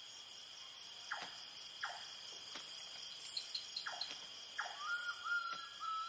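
Night-time insect chorus of crickets: a steady, high-pitched trilling, with a few short calls sweeping downward in pitch and a whistled tone coming in near the end.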